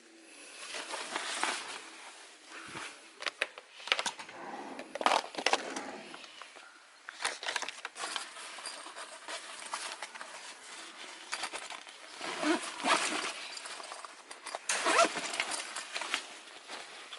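Irregular clicks, taps and rustling, as of small objects being handled, in uneven clusters with the loudest a few seconds in, around two-thirds through and near the end.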